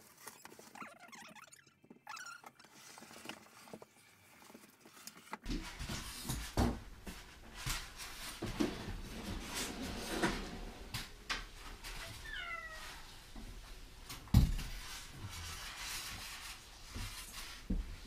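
Polystyrene packing pieces and cardboard from a dishwasher being handled and carried: rustling, clicks and knocks, with a short high squeak falling in pitch about twelve seconds in and a heavier thump a couple of seconds later.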